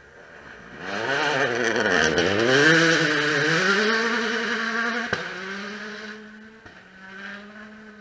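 A 2017 World Rally Car's 1.6-litre turbocharged four-cylinder engine passing at speed: the revs dip and then climb again as it comes close. A sharp crack comes about five seconds in, then a steady engine note fades as the car pulls away.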